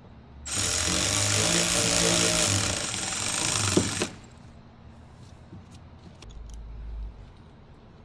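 Handheld power tool, a drill or impact driver, running hard for about three and a half seconds while driving a fastener, then stopping abruptly. A few faint clicks and a low rumble follow.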